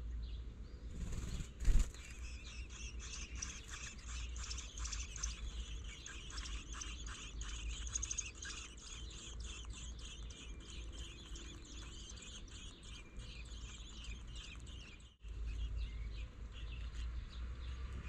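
American robin nestlings begging at the nest: a dense run of rapid, high, thin chirps while a parent robin is there to feed them. A brief loud thump comes about two seconds in.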